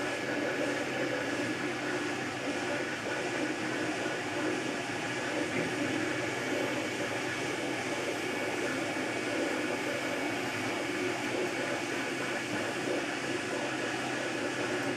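MakerBot Replicator 2 3D printer printing in PLA: its stepper motors whir in quickly shifting tones as the extruder moves over the bracelet, over a steady mechanical whir.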